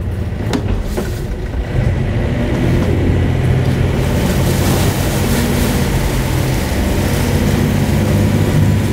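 A sailboat's inboard diesel engine running hard under throttle, getting louder about two seconds in and holding steady. The boat stays put because its keel is aground in the mud.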